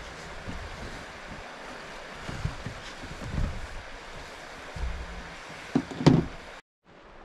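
Steady rushing of a nearby creek behind a series of low thumps and shuffles as a person shifts about on a mattress in a truck-bed camper shell, the loudest knock about six seconds in. The sound cuts out briefly near the end.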